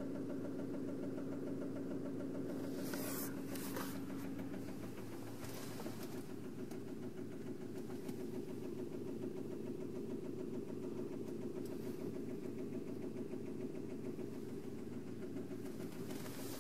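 Honda Accord 2.2 i-CTDi four-cylinder turbodiesel idling steadily, heard from inside the cabin, with a few brief rustles from handling.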